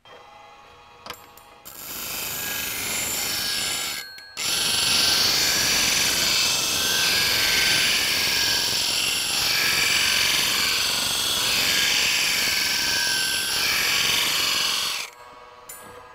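Tradesman DC bench grinder at about 1500 RPM hollow grinding the bevel of a new steel plane blade. A loud steady hiss of steel on the wheel starts about four seconds in and swells and eases about every two and a half seconds as the blade is slid across the wheel. It stops about a second before the end while the motor keeps running.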